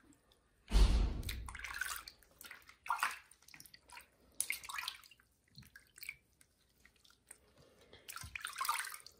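Bathwater splashing and dripping in a sink as a small kitten is held and washed by hand, in uneven bursts, the loudest about a second in.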